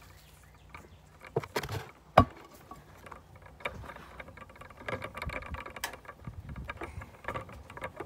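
Tools being hoisted up on a rope: a few sharp knocks between one and two and a half seconds in, the loudest just after two seconds, then a run of scraping and light clattering as the rope and its load are pulled up.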